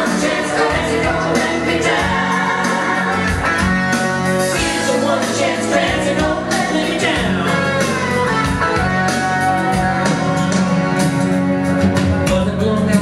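A singer's voice over a backing music track: the song carries on without a break.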